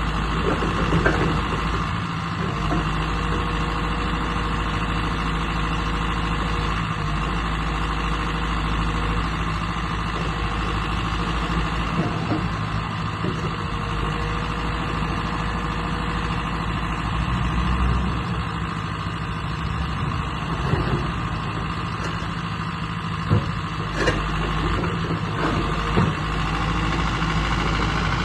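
A JCB 86C-1 midi excavator's diesel engine running steadily at idle, with a few brief knocks now and then.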